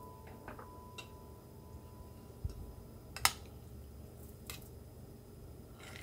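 A few faint, irregular clicks and taps of dishware as a plate is tilted over a glass baking dish and food is scraped off it, one sharper click about three seconds in.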